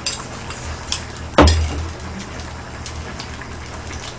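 A spoon clinking against a bowl and a pot of stew, with a few light clicks and one sharp, loud knock about a second and a half in.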